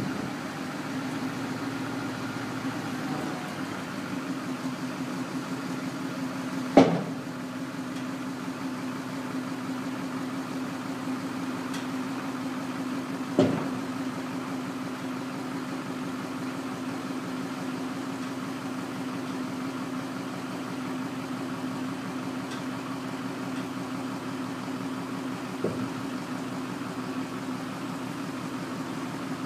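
Yard tractor's engine idling steadily as it powers the hoist that lowers the raised aluminum end dump box. Three sharp knocks cut through, about seven, thirteen and twenty-six seconds in, the first the loudest.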